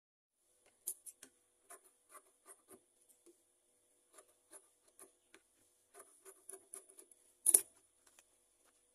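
Batik cotton fabric being handled and smoothed on a sewing machine table: a string of short rustles and soft taps, the loudest about seven and a half seconds in, over a faint steady high whine.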